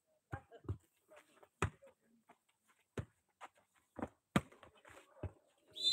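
A volleyball being struck by players' hands and arms during a rally: a series of about eight sharp, separate slaps a fraction of a second to a second apart, the loudest about four and a half seconds in. A referee's whistle begins right at the end, ending the rally.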